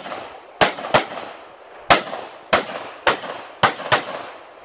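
A red-dot-sighted competition pistol fired seven times, spaced irregularly with some shots in quick pairs, each shot followed by a short echo.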